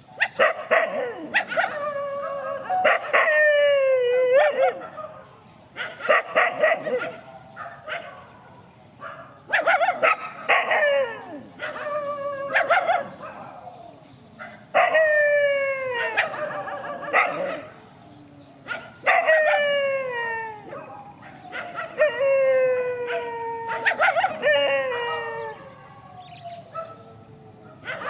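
Dogs barking and howling at each other in repeated bouts every few seconds, with short barks and yips among drawn-out howls that slide down in pitch.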